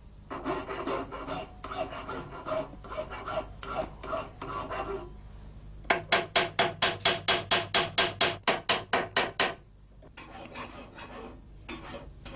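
Hand file rasping on the nickel-silver crossguard of a knife held in a vise: uneven strokes at first, then a quick, even run of about twenty strokes, roughly six a second, then softer, irregular strokes near the end.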